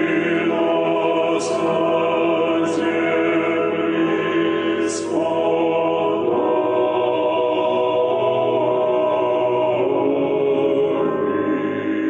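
Background music: a choir singing long held chords that change every few seconds.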